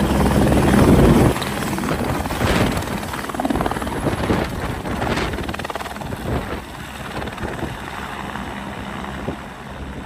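Helicopter rotor and engine noise, loudest about a second in, then dropping away to a quieter, fluctuating drone.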